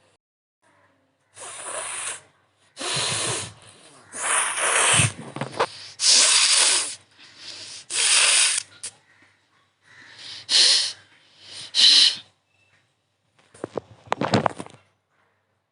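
A person blowing their nose hard, again and again: about eight forceful, hissing nasal blasts, the last ones wet and spluttering. The nose is burning from chili put inside it.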